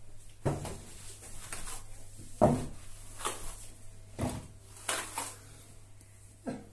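Steel plastering trowel scraping and knocking against a hawk and fresh base-coat plaster on a wall: about seven short, uneven strokes, the loudest about two and a half seconds in.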